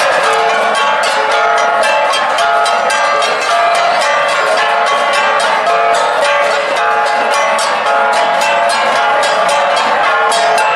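An ensemble of Cordilleran gangsa (flat gongs) played with rapid, continuous interlocking strikes, many ringing metallic tones sounding together at a steady level.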